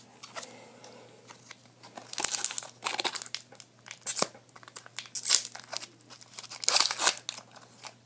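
Foil wrapper of a Magic Origins booster pack crinkling as it is handled and torn open by hand, in irregular crackling bursts that begin about two seconds in.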